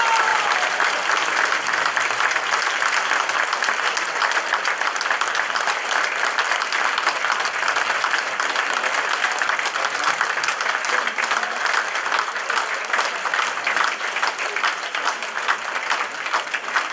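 Theatre audience applauding: dense, steady clapping that thins near the end into more separate claps.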